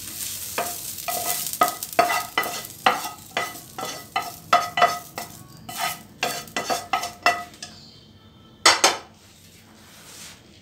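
Metal pan being scraped out and knocked, each knock ringing, about two to three knocks a second, as fried onions are emptied into a second pan of okra, over a light sizzle. The knocking stops about three-quarters in, with two louder knocks shortly after.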